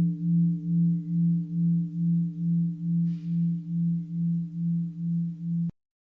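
Mindfulness bell ringing out after a strike: one low tone with fainter higher overtones, wavering in loudness a little over twice a second and slowly fading. It cuts off abruptly near the end.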